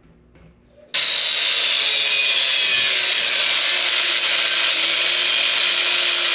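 Power drill running under load for about five seconds, driving or boring into the wall to fasten the heater's exhaust plate. It starts suddenly about a second in, sags slightly in pitch as it works, and stops abruptly.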